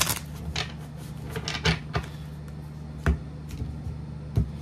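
Tarot cards being handled and laid down on a table: a handful of separate light taps and clicks, about five over four seconds.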